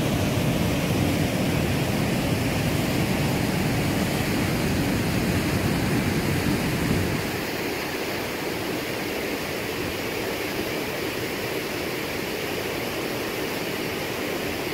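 Steady rush of a waterfall. About seven seconds in it becomes quieter and loses most of its low rumble.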